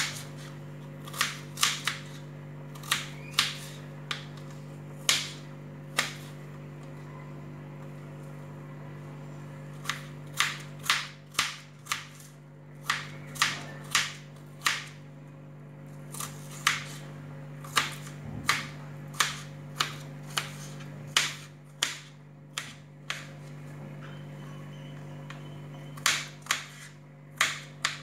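Kitchen knife dicing a red onion on a wooden cutting board: irregular sharp taps of the blade striking the board, coming in quick bunches with pauses of a few seconds between them. A steady low hum runs underneath.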